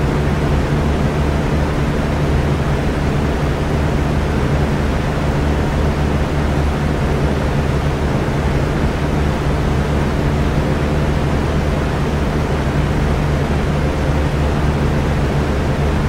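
Electric fan running steadily: a constant whoosh of moving air with a low, even hum beneath it and no change in speed.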